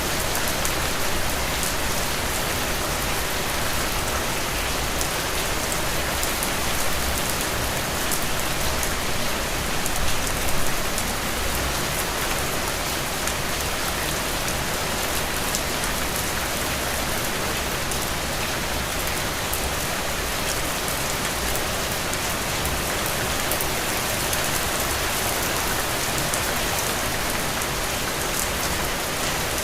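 Steady rain falling, a dense even hiss with scattered drop ticks, swelling briefly about ten seconds in.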